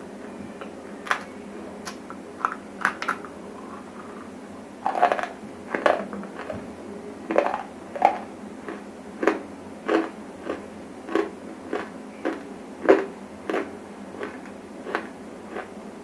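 Dry grey clay lumps being bitten and chewed right at a lapel microphone: irregular sharp, dry crunches, roughly one or two a second, louder from about five seconds in.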